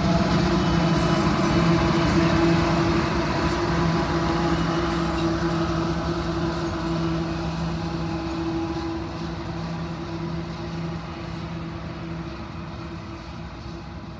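Diesel freight locomotive rolling slowly past with a steady low engine drone and rail rumble, fading as it moves away.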